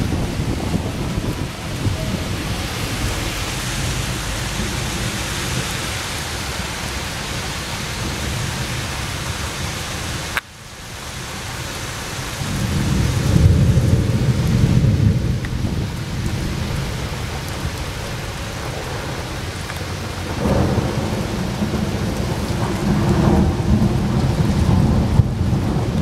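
Thunderstorm: steady heavy rain hiss with rolling thunder. Deep rumbles swell up about halfway through and again in the last few seconds, and the sound drops out briefly about ten seconds in.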